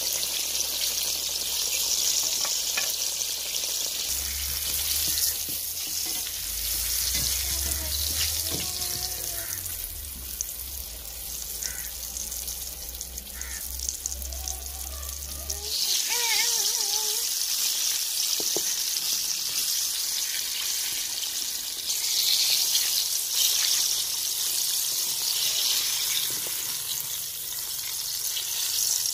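Hot oil sizzling steadily around breaded chicken drumsticks in an aluminium pan, their second fry on a low flame. The hiss eases off in the middle and swells up again about halfway through.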